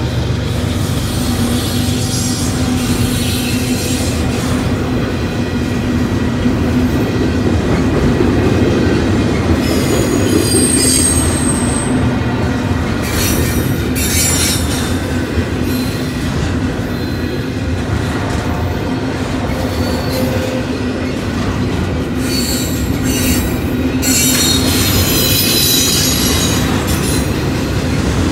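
Union Pacific double-stack intermodal freight train rolling past, its cars making a steady rumble. Several bursts of high-pitched wheel squeal rise over the rumble.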